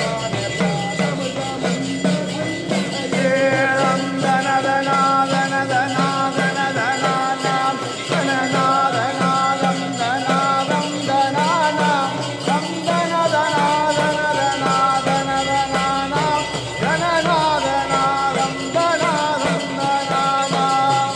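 Music: a melody of long held notes that step and slide in pitch, over fast shaken percussion.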